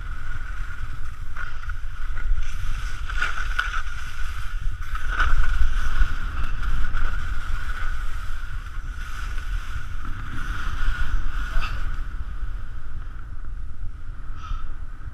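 Wind buffeting an action camera's microphone during a ski descent, a steady low rumble with a thin steady whistle over it. Skis hiss and scrape on the snow, with a few louder scrapes about three, five and eleven seconds in.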